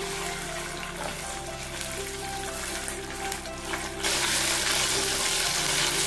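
Ginger garlic paste sizzling in hot oil in a non-stick kadai while a spatula stirs it; the sizzle turns louder about four seconds in.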